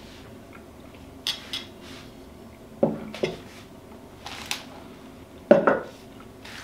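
Metal spoon clinking against a ceramic soup bowl: a few sharp, separate clinks spread over several seconds, then a heavier knock about five and a half seconds in.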